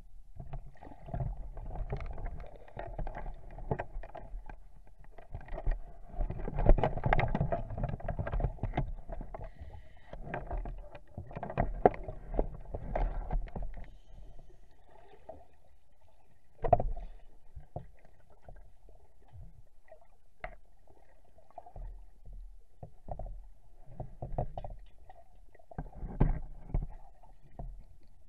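Scuba regulator exhaust bubbles heard underwater: bursts of bubbling with a low rumble, coming every few seconds with quieter gaps between.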